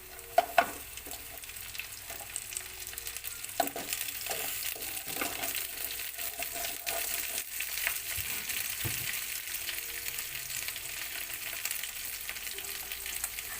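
Whole crabs frying in hot olive oil and garlic in a pan, a steady sizzle that grows fuller after a few seconds. A couple of sharp knocks in the first second and another about three and a half seconds in, as shells hit the pan.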